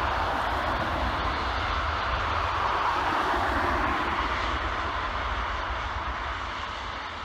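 Jet noise from an Airbus A350-1000's Rolls-Royce Trent XWB engines as it lands: a steady rumble that swells a few seconds in, then fades as the aircraft passes.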